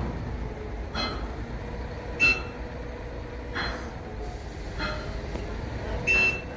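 Five sharp metal clanks, each ringing briefly, about one to one and a half seconds apart; the loudest comes a little over two seconds in. Under them runs a steady low rumble of heavy rig machinery with a faint steady hum.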